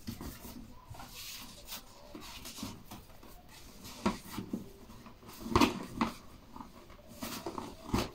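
Hands untying and pulling a ribbon off a large gift box: soft rustling and rubbing with scattered light taps, a few louder ones about halfway through.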